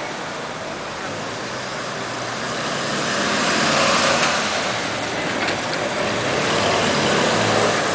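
Classic wood-bodied station wagons driving slowly past one after another, their engines running low and steady under tyre and road noise. The sound swells as a car goes by from about three seconds in and stays up.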